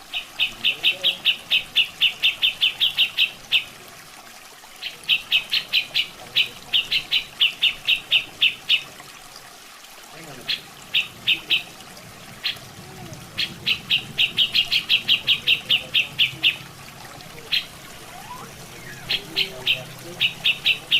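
Cucak jenggot (grey-cheeked bulbul) calling in runs of rapid, sharp, evenly repeated notes, about seven or eight a second, each run lasting a second or more with short breaks between. Underneath, a steady background of running water.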